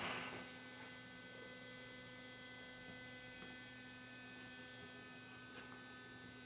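Faint, steady electrical mains hum with a thin high whine over it.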